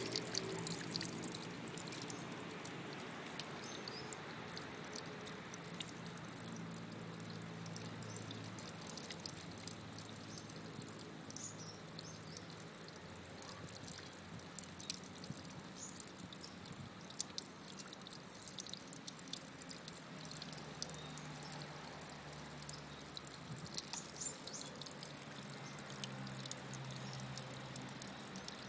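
Water trickling and dripping steadily, with many small light ticks and splashes throughout.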